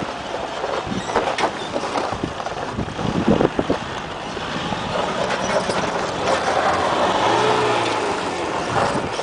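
Toyota Hilux diesel engine working hard as the pickup claws up a loose gravel slope, with its tyres crunching and spinning on the stones. The revs rise and fall about two-thirds of the way in.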